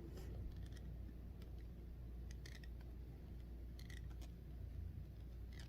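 Quiet room hum with a few faint, scattered clicks.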